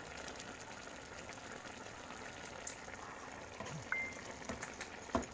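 Chicken, potato and green-pea stew simmering in a wok, bubbling faintly and steadily. A brief high beep comes about four seconds in, and a single knock near the end.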